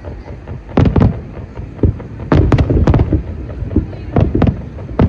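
Aerial fireworks shells bursting in a rapid, irregular series of loud bangs, several a second, after a short lull at the start.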